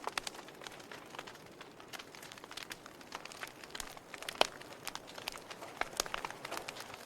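Wood fire burning in a fireplace: logs crackling with scattered irregular pops over a soft steady hiss, one louder pop about four and a half seconds in.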